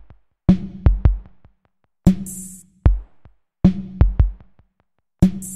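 Sparse electronic drum beat opening a pop song: short groups of sharp hits over a deep low boom, with brief silent gaps between the groups and a high hiss on some of the beats.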